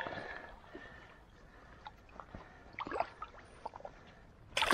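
Quiet water lapping with small drips and clicks as a carp is eased into the shallows on a wet unhooking mat, then a sudden loud splash near the end as the fish is released.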